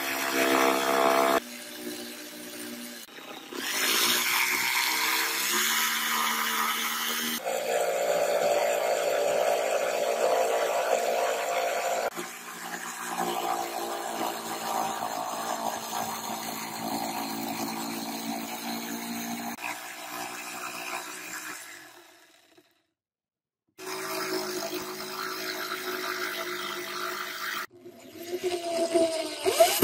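Electric jigsaw cutting through a particleboard panel, its motor running loud and steady, stopping and starting several times with a brief silence about three-quarters through. Near the end an electric drill bores into the board, its motor pitch rising and falling.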